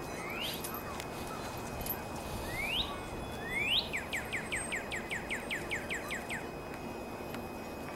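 Male northern cardinal singing: three rising slurred whistles spaced out over the first four seconds, then a rapid run of about fourteen short falling notes, roughly six a second, lasting about two and a half seconds.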